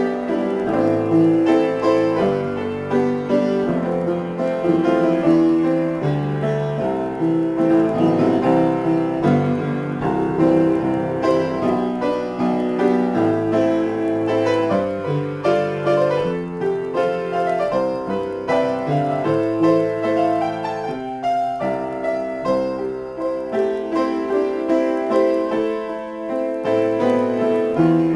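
Upright piano played without a break in a freely improvised piece: full chords with low bass notes under running notes higher up.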